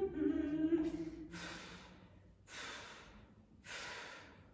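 A woman's short strained groan, then heavy breathing from exertion: three loud breaths, about a second apart.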